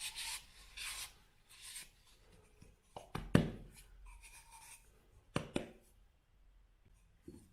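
Soft paper napkin wiping and polishing the metal parts of a Timemore hand coffee grinder: a few soft swishes of paper on metal, then several sharp clicks and knocks.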